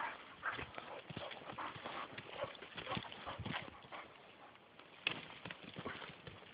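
Footsteps of a person and a Hungarian Vizsla puppy crunching and rustling through dry fallen leaves, in an uneven run of steps. There is one sharper snap about five seconds in.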